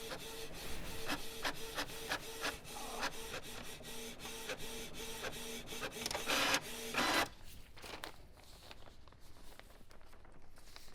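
A printer printing: a pulsing mechanical hum with rapid clicks. There is a louder rushing burst just before it stops, about seven seconds in.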